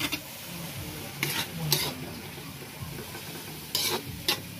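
Octopus pieces sizzling in a metal wok as they are stir-fried with a metal spatula, mixing in the freshly added seasoning; the spatula scrapes and knocks against the pan several times over a steady frying sizzle.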